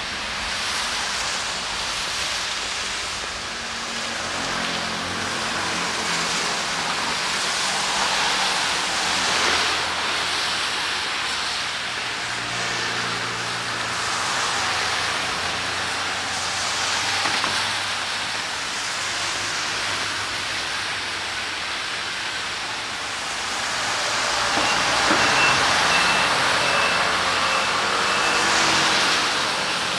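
Steady rain and street traffic on wet roads: vehicles pass with a tyre hiss that swells several times, loudest a few seconds before the end, over a low engine sound. A short row of high beeps sounds near the end.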